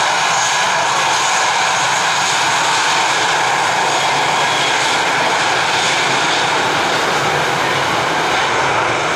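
Jet airliner engines running, a loud steady rush with several thin whining tones through it.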